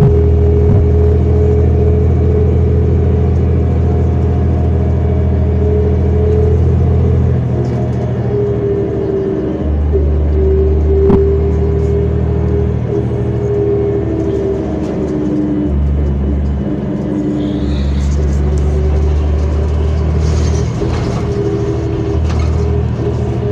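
City bus running, heard from inside: a steady low rumble with a humming tone above it, the drone shifting every few seconds as the bus speeds up and slows. There is a single sharp knock about eleven seconds in.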